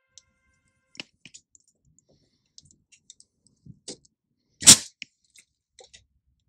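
A short blast of compressed air, from a line set to about 30 psi, put into the top of a shock absorber to push its internal floating piston back and purge trapped air. It comes a little over two-thirds of the way in, with small clicks and taps of hands and fittings on the shock around it.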